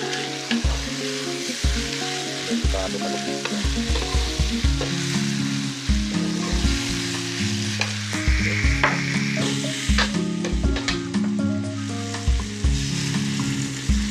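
Vegetables and tempe stir-frying in hot oil: a steady sizzle with a spatula scraping and clicking against the pan many times.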